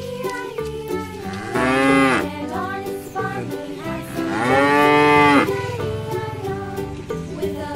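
A cow mooing twice, two long moos that each rise then fall in pitch, over light background music.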